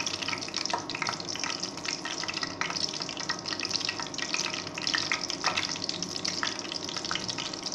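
Whole spices (bay leaf, cardamom, cloves, dried red chilli, cinnamon, peppercorns, cumin) sizzling and crackling in hot oil in a steel pan as they are stirred with a spoon, a steady frying hiss dotted with many small pops.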